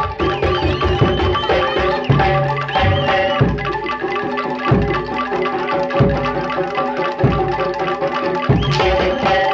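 Live Javanese gamelan music for a jaranan (kuda lumping) dance: kendang hand drums beat a steady rhythm over ringing bronze gong-chime notes. A high wavering melody line plays over them in the first few seconds.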